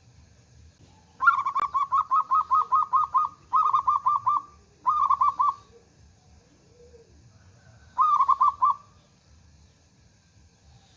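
Zebra dove calling: four bursts of rapid, evenly repeated cooing notes. The first burst is the longest, about two seconds, and a short one comes near the end after a pause.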